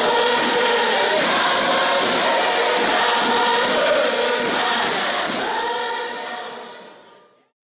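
Choir singing, fading out near the end.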